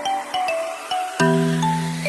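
Background music: a light melody of short struck notes, joined by a sustained low note about a second in.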